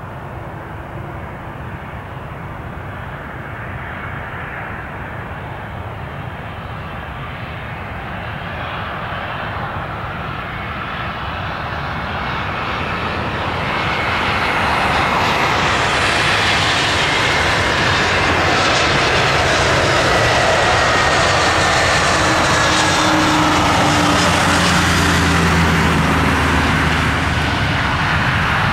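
An Airbus A320's twin turbofan engines on final approach, growing louder as the airliner comes in and passes. From about midway a high engine whine falls slowly in pitch as it goes by.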